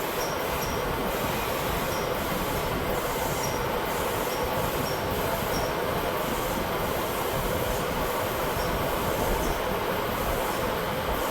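Steady rushing noise of a shop fan blowing, with a faint short high chirp now and then.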